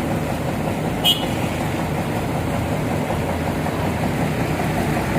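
Kobelco excavators' diesel engines running steadily at working speed, with a single short sharp metallic click about a second in.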